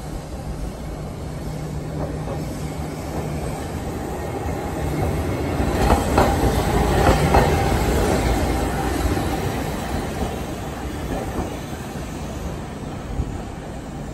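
Hankai Tramway streetcar running along street track, growing louder as it approaches and passes close by about six to eight seconds in, wheels clattering over the rails as it goes by, then fading as it moves away.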